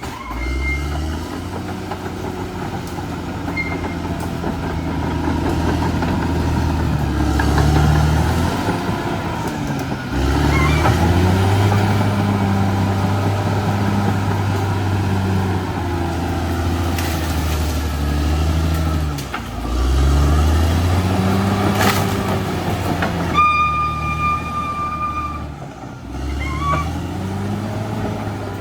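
Caterpillar D6R XL bulldozer's diesel engine working under load. Its pitch sags and climbs again several times as the load comes on and off. A sharp metallic knock comes about three-quarters of the way through, followed by a brief high-pitched tone.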